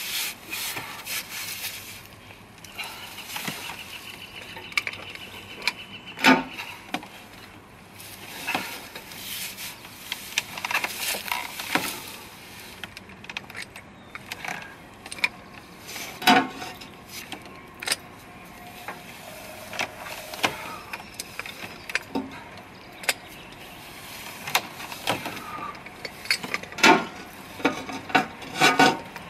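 A 3/4-inch ratchet and socket driving a 4-foot helical earth anchor into the ground: irregular metallic clicks and clanks, some in quick runs, as the handle is worked back and forth against a stiff anchor.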